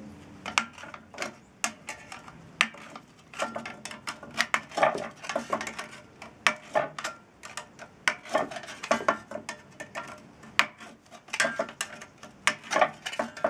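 A church-key opener punching holes around the bottom rim of an empty tin can: an uneven string of sharp metallic clicks and crunches as the thin tin is pierced and the can is turned.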